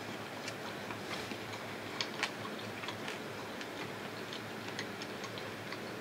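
Quiet eating noises: scattered small clicks and ticks, several a second, with two sharper clicks about two seconds in, over a low steady hum.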